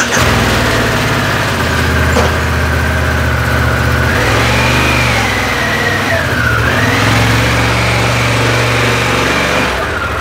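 Harley-Davidson Pan America 1250's Revolution Max V-twin engine running at low revs on its stock exhaust while the bike is ridden slowly forward. It starts abruptly, and its pitch rises for a couple of seconds in the middle before settling back.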